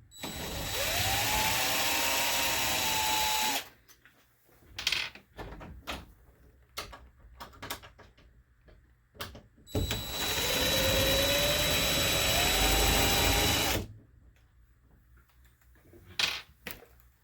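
Power drill backing out a doorknob's mounting screws, running twice for a few seconds each time with its motor whine rising as it spins up, with light clicks and handling knocks between the runs.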